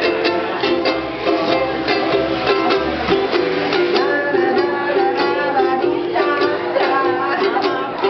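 Several ukuleles strumming a slow, steady rhythm, with a voice singing the melody over them from about halfway in.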